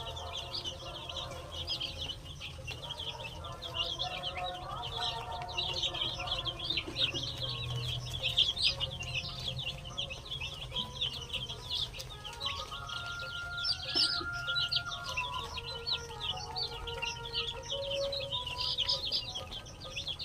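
Desi chickens clucking, over a constant dense high chirping. A longer, drawn-out call stands out about two thirds of the way in.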